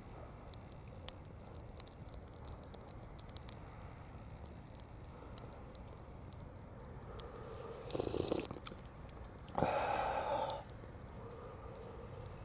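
Small wood fire crackling, with scattered sharp pops in the first half. About eight seconds in there is a short noisy sound, and near ten seconds a louder one that lasts about a second.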